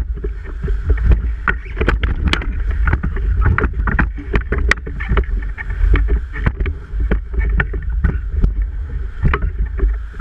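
Class 4 whitewater rapids rushing and splashing against a raft, with many sharp splashes and knocks throughout. A heavy low rumble comes from wind and water buffeting the microphone.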